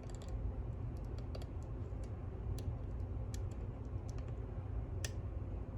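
Scattered light clicks of a hook pick lifting and setting pins inside a pin-tumbler lock, with a sharper click about five seconds in, over a steady low hum.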